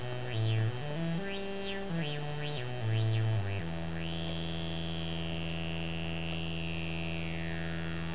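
Auduino, an Arduino granular synthesizer in pentatonic mode, played through a small LM386 amplifier as its knobs are turned. It steps quickly between low notes for the first few seconds, then holds one low note while a high tone above it holds and then slides down near the end.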